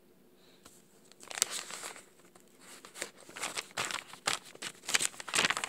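Irregular bursts of crinkling and rustling from something being handled, beginning about a second in and coming thick and fast toward the end.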